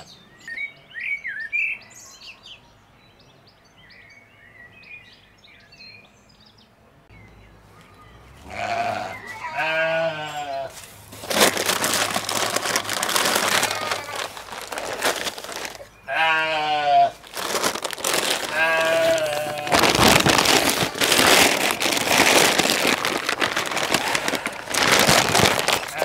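Sheep bleating a few times in quavering calls, between stretches of loud rustling as hay is pulled from a round bale and stuffed into a feed sack. Faint bird chirps at the start.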